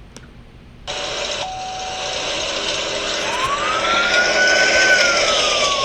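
Police car siren winding up into a wail, rising in pitch, holding, then slowly falling, over the steady engine and road noise of the moving patrol car.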